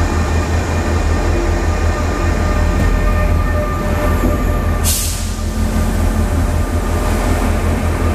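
DSB passenger train rolling past close by as it accelerates away from the platform: a steady low rumble with a few steady whining tones over it, and a short sharp hiss about five seconds in.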